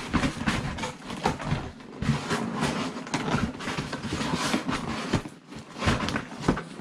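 Cardboard scraping and rubbing as a tight-fitting inner box is tugged and worked out of its outer box, with irregular scrapes, rustles and small knocks.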